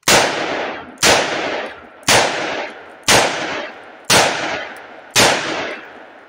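Six .357 Magnum shots from a Rossi RP63 3-inch revolver, fired at an even pace of about one a second, each followed by echo that dies away. The string is mixed defensive loads: two Remington 125-grain hollow points, two Winchester 145-grain Silvertips, and last two hot Underwood rounds.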